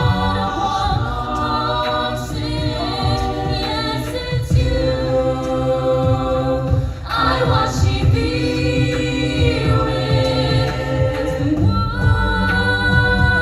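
High school a cappella group singing, with several voices holding and changing close-harmony chords and a short break in the sound about seven seconds in.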